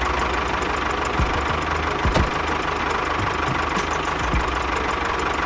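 Engine running steadily at idle, with a few scattered clicks.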